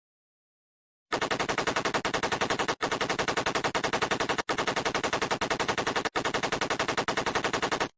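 Rapid automatic gunfire, about ten shots a second, in four bursts with brief breaks between them. It starts about a second in and cuts off suddenly near the end.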